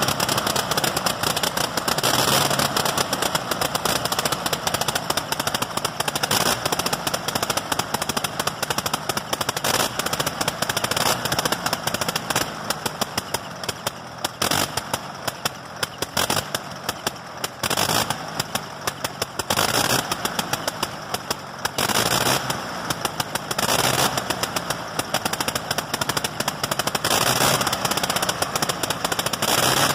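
1918 Gnome rotary aircraft engine running on a test stand, a fast staccato of firing pulses. About twelve seconds in it eases off and turns ragged, with brief dropouts, then picks back up for the last several seconds.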